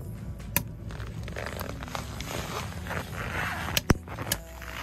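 A wood fire burning in a small sheet-metal camp wood stove, with a few sharp pops and cracks, the loudest just before four seconds in. Soft crunching of steps on packed snow runs between them.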